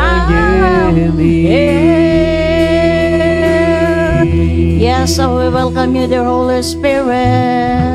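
Worship music: one voice singing long, gliding held notes over a steady, sustained instrumental backing.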